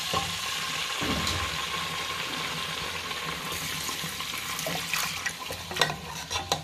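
Milk poured from a carton into hot oil in a pan, hissing and sizzling steadily as it hits the oil. The hiss thins about five seconds in, and a few sharp scrapes and clicks follow as a slotted metal spoon stirs the pan.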